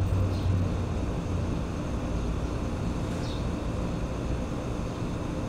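Steady low outdoor rumble, with a few faint, short high chirps.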